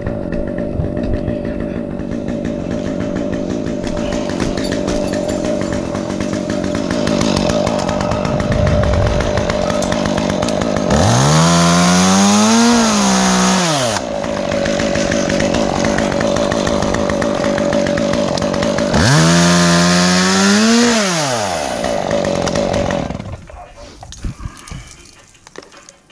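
Stihl chainsaw idling and revved up to full throttle twice, each time for about three seconds, then shut off near the end.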